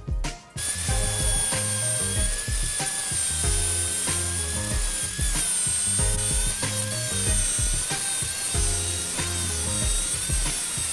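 Angle grinder with a cutting disc cutting through a steel motorcycle chain clamped in a vise, starting about half a second in; its whine wavers up and down as the load changes. Background music with a steady beat plays under it.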